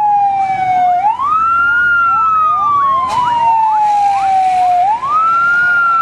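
Fire engine siren wailing loudly. Its pitch climbs quickly about a second in, falls slowly for several seconds, then climbs again near the end. A fainter, faster series of short rising sweeps runs underneath.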